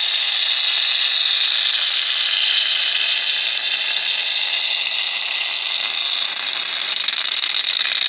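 Aerosol can of shaving foam spraying foam out in one long, steady, loud hiss.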